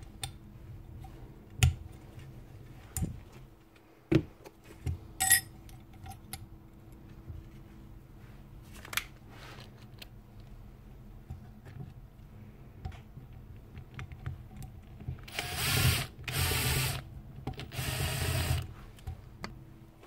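Light metal clinks and taps as tools work at the bearing seats of a stripped-down router's metal housing, one of them ringing briefly. Near the end, three loud bursts of a small power tool running, about a second each.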